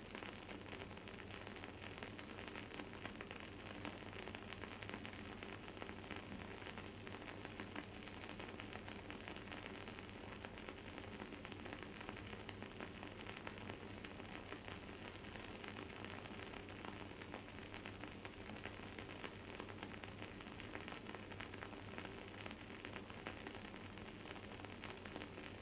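Wooden candle wick crackling and sizzling as it burns: a steady, quiet stream of fine, rapid crackles.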